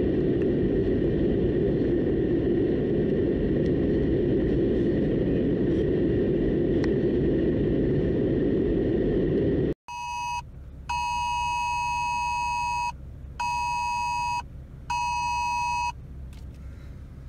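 Steady road and engine noise inside a moving vehicle for about ten seconds. Then, after a sudden cut, a phone's Wireless Emergency Alert sounds its two-tone attention signal in on-off beeps: a short beep, one of about two seconds, then two of about a second.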